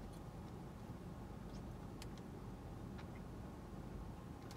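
Steady low hum of a parked car idling with its air conditioning on, heard inside the cabin, with a few faint clicks of someone chewing a protein bar.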